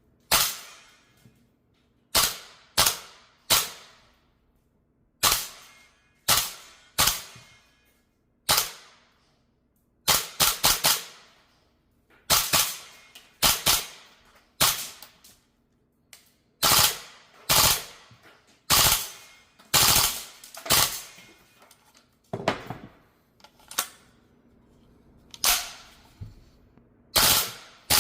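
VFC AR-15 gas blowback airsoft rifle firing, mostly single shots at an uneven pace with a few quick strings of shots; each shot is a sharp crack with a short ring.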